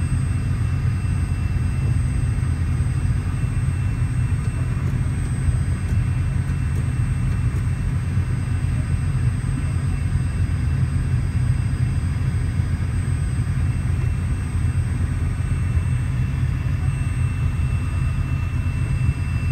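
Light airplane's engine running steadily at taxi power, heard inside the cockpit: an even low drone with thin steady high whines over it.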